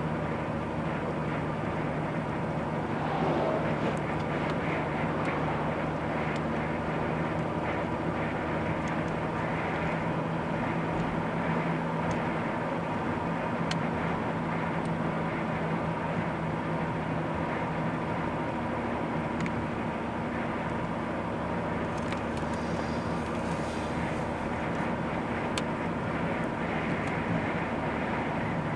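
A car cruising steadily on an open road, heard from inside the cabin: a steady engine hum over road and tyre noise.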